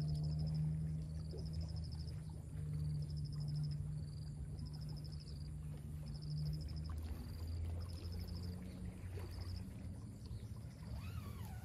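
Low, steady engine drone of a distant motorboat, its pitch dropping about seven seconds in. Over it, short, evenly pulsed high insect trills repeat about once a second.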